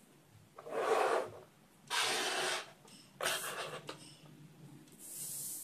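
Handling noise as small parts are picked up off a mat and cleared away: three short rustling rubs, then a softer, higher hiss near the end.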